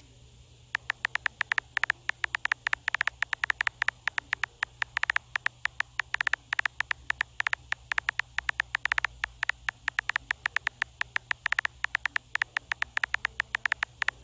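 Phone keyboard typing sound from a texting app: quick, even clicks, several a second, one per letter as a message is typed out, starting about a second in.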